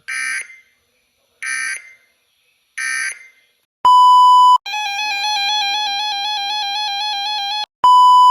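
Three short, buzzy digital data bursts from an Emergency Alert System broadcast, about a second and a half apart, typical of the end-of-message code sent after a weather radio alert. Then electronic alert tones follow: a steady high beep lasting under a second, a warbling tone for about three seconds, and another steady beep near the end.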